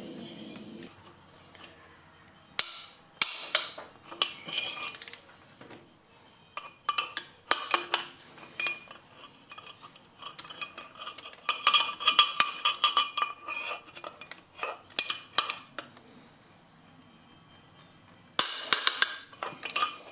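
Ratchet wrench and socket clicking and clinking against metal engine parts in several short bursts, with quiet gaps between, as the bolts of a diesel tractor's fuel filter bracket are undone.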